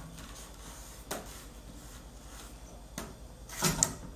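Plastic vacuum attachments being handled and fitted onto the Hoover upright: a knock about a second in, another about three seconds in, then a louder clattering snap near the end.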